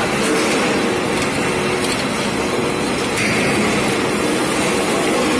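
Popcorn coating machine and sifter running in a steady mechanical din, with coated popcorn pouring and rattling onto the sifter's stainless-steel tray.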